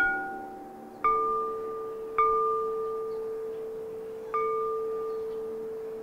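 Celadon porcelain percussion struck four times, each note ringing on and slowly fading. The last three strikes sound the same clear note.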